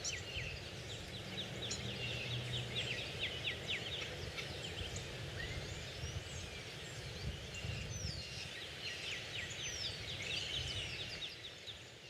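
Birds calling: two runs of rapid clicking, rattling notes, the first at the start and the second near the end, with several whistled slurs between, over a low steady background rumble.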